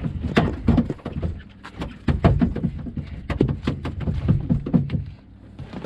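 A freshly landed fish thrashing while held up for unhooking, its body knocking against the boat in a fast, irregular run of thuds and taps that dies away about five seconds in.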